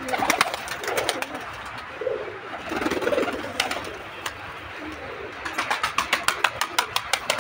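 Domestic pigeons cooing in low, soft bursts, then a quick run of sharp clicking taps near the end as a pigeon's beak pecks at grain in a bowl.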